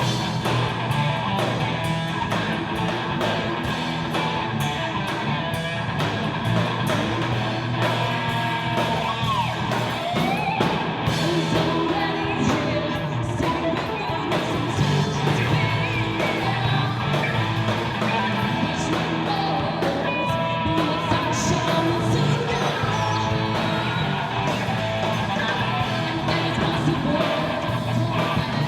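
A live band playing a song: a singer over guitar with a steady beat.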